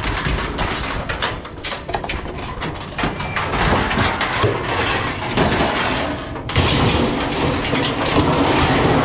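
Scrap sheet-metal appliance parts handled and stacked into a pickup bed: repeated clanks, knocks and scraping of metal against metal.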